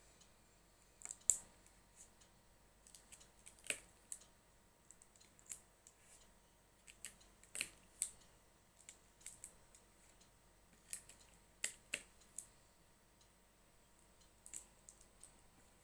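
Sellotape and folded craft paper being handled: irregular small sharp clicks, a couple of them in quick pairs.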